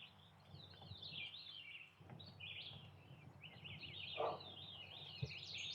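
Songbirds singing in a continuous run of quick, high chirping notes. A single sharp low knock sounds near the end.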